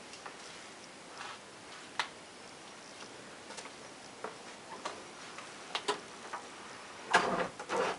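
Irregular light clicks and taps from footsteps and handling of a handheld camera while walking, with a louder rustle about seven seconds in.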